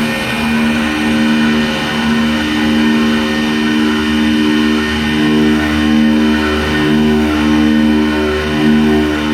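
Mecaserv CNC vertical machining centre milling Fortal aluminium alloy. The cutter sings a steady pitched tone with several overtones, breaking off briefly now and then, over a low machine hum.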